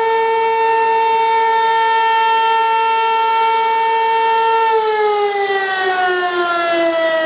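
A loud warning siren sounding one long held wail that begins slowly falling in pitch about two-thirds of the way through, as if winding down, over the steady rush of water pouring down the dam's spillway.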